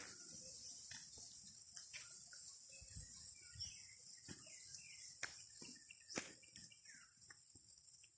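Faint, steady high-pitched insect chorus, with soft footsteps on the dirt steps about once a second and a few faint bird chirps.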